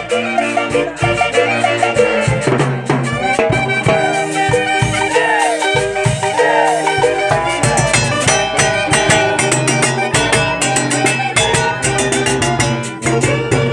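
Lively festive music: several held melody notes over a percussion beat, the percussion getting busier about halfway through.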